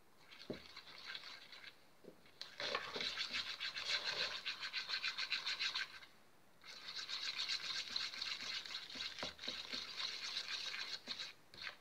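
A plastic stick rapidly stirring and scraping glue-and-glitter slime in a bowl, in three spells of fast strokes with brief pauses. The slime is being mixed as the detergent activator makes it set.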